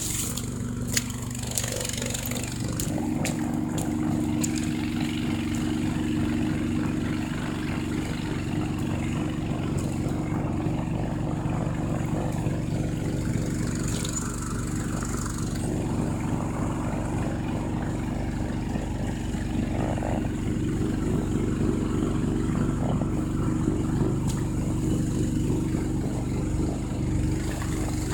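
Snowblower engine running steadily, a little louder and fuller from about three seconds in, with a few light clicks near the start.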